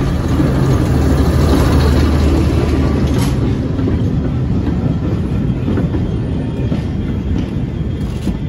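Diesel locomotive running past, its engine's low hum loudest in the first few seconds and then easing off, with faint clicking from the wheels.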